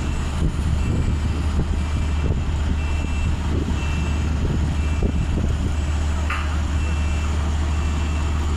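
Mobile crane's diesel engine running steadily with a low drone, while its warning beeper gives short high beeps about once a second.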